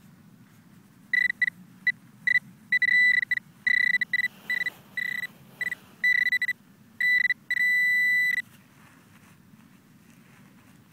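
Metal detector beeping: a single high electronic tone in short, irregular pulses that merge into one steady tone for just under a second near the end, then stop. This is the signal of the coil homing in on a buried metal target.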